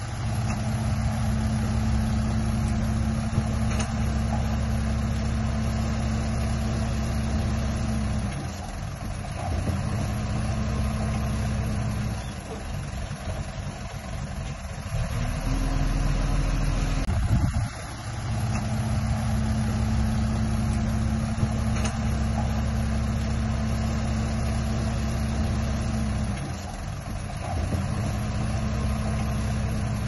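Diesel dump truck engine running steadily while its hydraulic hoist tips the loaded bed to dump dirt. The engine drops back a few times and picks up again.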